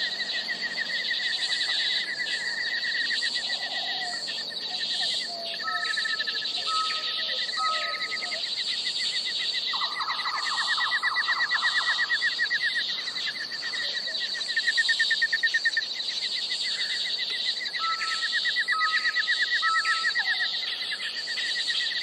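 A steady chorus of birds and insects: rapid high trills overlapping with short repeated chirps. The same phrases come back about every twelve seconds.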